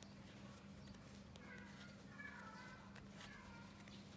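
Near silence: room tone with a steady low hum and a few soft clicks of bamboo knitting needles working chenille yarn. Faint high wavering squeaks come in the middle.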